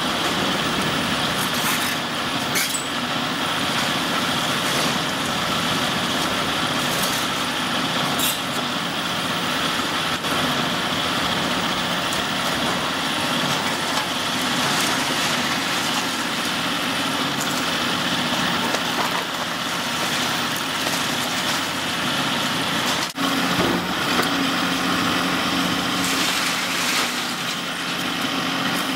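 Diesel engine of a Caterpillar 349E hydraulic excavator running steadily under load while its Demarec DLD-45 demolition shear works on a brick building, with a few sharp knocks and cracks from the demolition.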